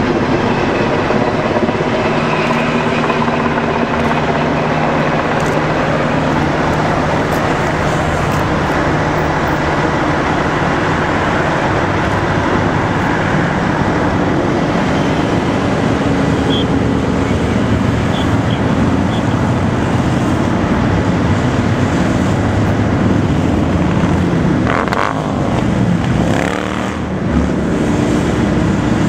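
Steady engine noise of a road procession passing below, mostly a long line of motorcycles riding by together, with a brief dip in loudness near the end.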